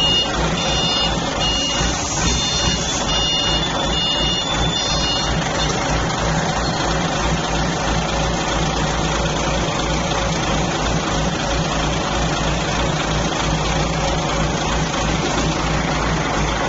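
Forklift engine running steadily while it carries a heavy crated load, with the forklift's warning alarm beeping about twice a second for the first five seconds before it stops.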